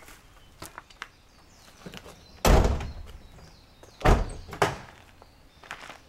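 Two heavy thuds about a second and a half apart, the second followed by a smaller knock, with light scuffs between: an SUV's door being shut.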